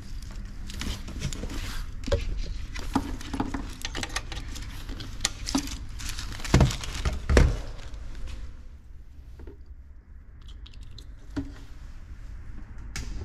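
Handling noises from hands working with equipment and packaging: scattered clicks, rustles and light knocks, with two heavier knocks about halfway through, growing quieter and sparser in the second half.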